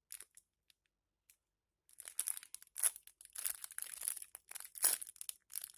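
Crinkling plastic as a squishy toy is handled in its wrapping: a few faint rustles, then steady crackly crinkling from about two seconds in.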